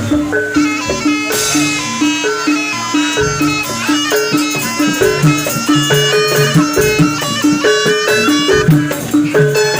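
Jaranan ensemble music, played live: a reedy wind melody over a steadily repeating pattern of short pitched notes and drums.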